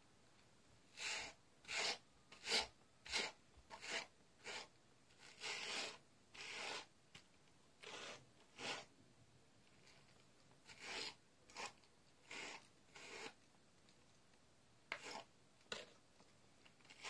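Faint, brisk strokes of a brush through a Furby Boom's synthetic fur, one about every 0.7 s, with a couple of short pauses between runs of strokes.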